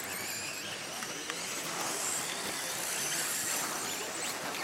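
Electric 1/10-scale two-wheel-drive RC buggy racing on a dirt track: its electric motor and gears give a high whine that rises and falls with the throttle, over a steady hiss of tyres on dirt.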